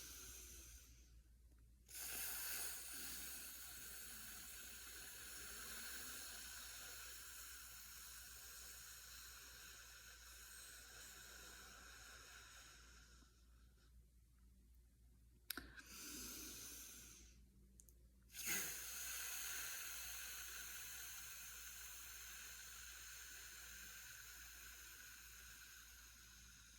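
A woman breathing out slowly through the teeth on a long 'fff' sound, twice: each exhale starts sharply and fades away over about ten seconds, with a short breath between them.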